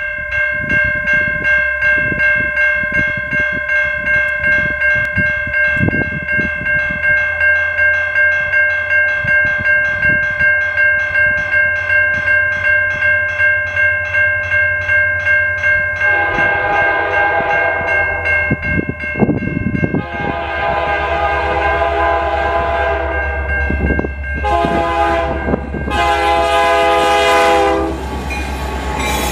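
Railroad crossing bell ringing with even, rapid strokes, about two and a half a second. Then the SD75I diesel-electric locomotive sounds its horn in the grade-crossing pattern: two long blasts, a short one and a long one. The low rumble of the approaching train grows near the end.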